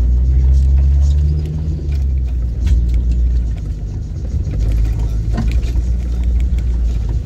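Off-road 4x4's engine running at a low, steady crawl, its note rising slightly about a second in and settling again, with scattered knocks and rattles from the body and suspension over a rough, rutted dirt track.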